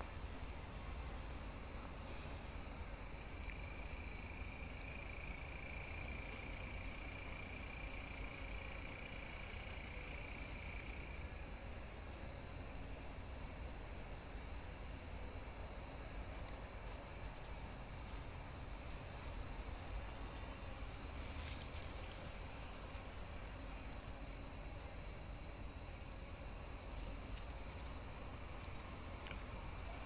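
Insects chirring in a steady, high-pitched chorus, with a faint high tick repeating a little more than once a second. The chorus swells louder a few seconds in and eases back before the middle.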